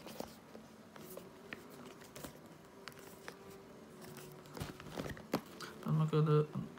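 Cardboard smartphone box being handled and turned over on a cloth surface: scattered light taps, scrapes and rustles. Near the end a short voiced sound, the loudest thing here.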